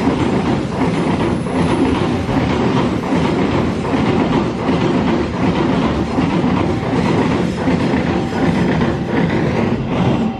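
Freight train of flatcars carrying steel coils and containers passing at speed, its wheels clattering rhythmically over the rail joints ("jedak-jeduk").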